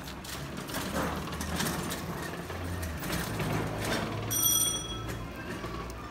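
Puppies scuffling and play-fighting on a dirt floor, with scattered soft scuffs and knocks over a low steady background hum. About four seconds in, a high ringing tone sounds for about a second, the loudest thing in the stretch.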